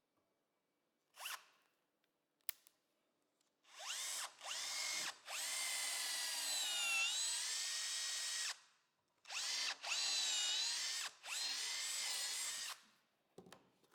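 Power drill running in five bursts, the longest about three seconds, its whine dipping in pitch as it bites under load while fixing the wooden cladding pieces together. Two light clicks come before the first burst.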